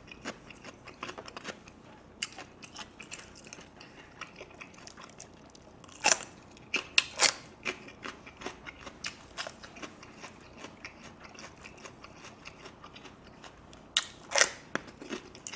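Close-miked chewing with small wet mouth clicks, broken twice by loud crisp crunching: about six seconds in, and again near the end as a raw green cucumber chili pepper is bitten into.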